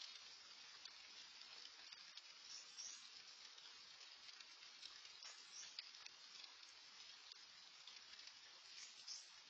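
Faint, steady hiss of light rain, with scattered drops ticking.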